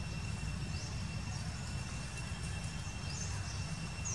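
Outdoor ambience: a steady low rumble with a thin, steady high-pitched tone over it, and several short high chirps scattered through.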